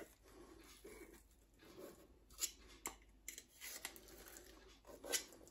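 Faint scraping and rubbing of a block of luncheon meat being worked loose inside an opened metal tin, with a few light, sharp clicks of the tin being handled and tapped over a plate.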